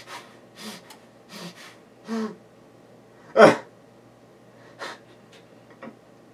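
A man's breathing close to the microphone: a string of short, audible breaths and exhales, the loudest about three and a half seconds in.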